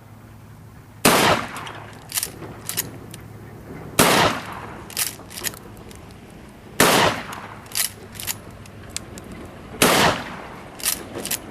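Mossberg 88 pump-action shotgun fired four times, about three seconds apart, each shot followed by two quick metallic clacks as the pump is racked back and forward to chamber the next shell.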